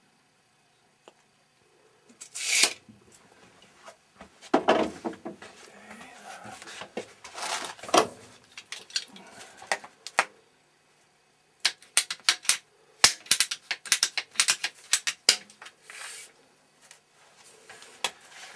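Irregular clicks, knocks and short scrapes of hands working with tools and fittings, with a quick run of sharp clicks in the second half.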